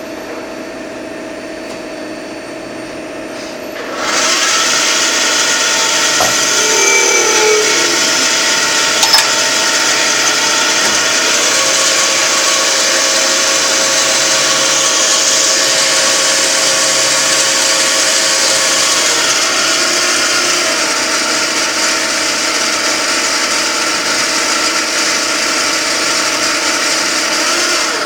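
CNC machine running with a steady motor hum. About four seconds in, its cutting starts, a loud, steady grinding noise that stops near the end.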